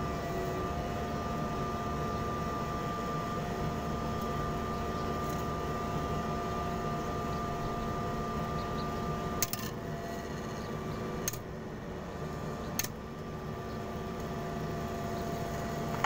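Washing machine wash motor running on test with a steady electric whine and hum. Three sharp clicks come in the second half, after which it runs a little quieter.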